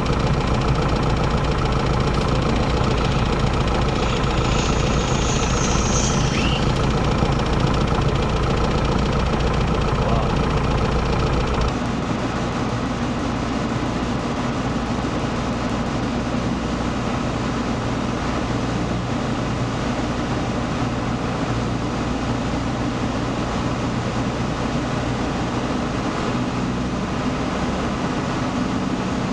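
The four-cylinder Lycoming engine of a Piper PA-28-140 Cherokee, running steadily at idle and heard from inside the cabin. About six seconds in, a brief high whine falls in pitch. About twelve seconds in the sound drops in level and turns to a different steady engine drone.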